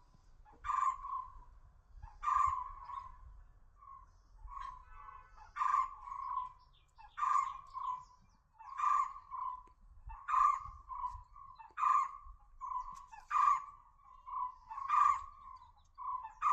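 A bird calling over and over, about ten times, roughly once every second and a half. Each call is a sharp high note followed by a few short, lower notes.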